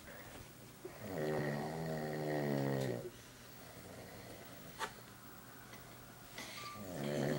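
A man snoring: one long, pitched snore lasting about two seconds, a quieter pause with a single faint click, then the next snore starting near the end.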